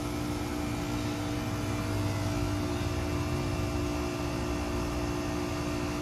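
Outdoor heat pump unit running through a defrost cycle: the compressor hums steadily, with several fixed tones over a low rumble.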